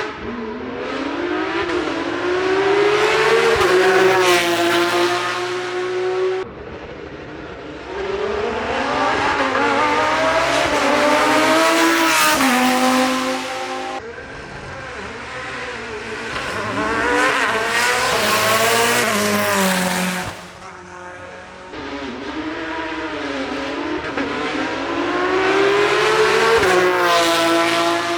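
Hillclimb race car engines launching and accelerating hard, the pitch climbing and dropping back at each upshift, in about four separate surges with short lulls between.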